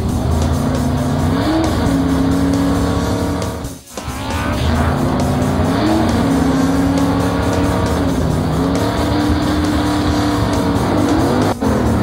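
Race car engine sound effect revving, its pitch climbing in steps several times, over background music. It drops out briefly about four seconds in.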